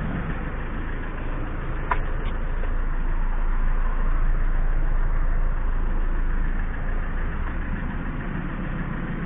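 Citroën C5 2.0 HDi four-cylinder turbodiesel idling steadily at a standstill, running with diesel fuel mixed into its crankcase oil to flush out carbon deposits. A single sharp click comes about two seconds in.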